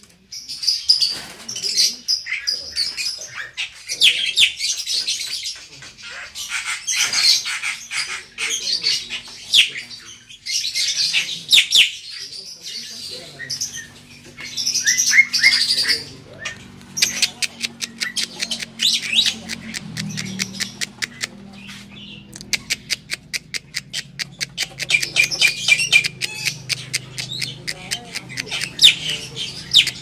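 Black-winged starlings calling: a busy run of harsh squawks, chirps and whistles, with a long series of rapid clicks in the second half. A low steady hum comes in a little before halfway.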